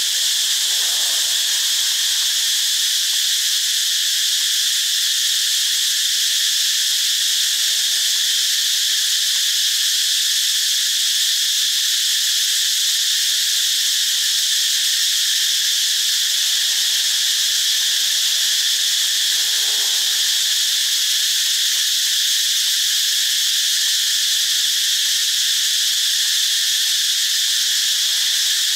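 Steady, loud chorus of insects: an unbroken high-pitched drone.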